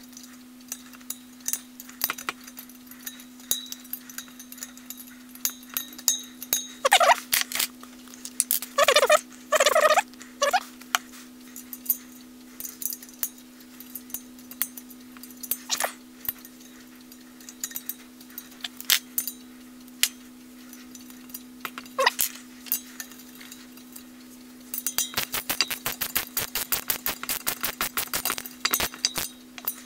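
Brass fittings and plugs on a copper boiler being unscrewed and refitted: scattered clicks and taps of metal tools on metal, a few short squeals about seven and ten seconds in, and a fast run of clicks near the end as a socket tightens a fitting, all over a steady low hum. The fitting is being resealed after a leak on its thread showed up in the hydraulic test.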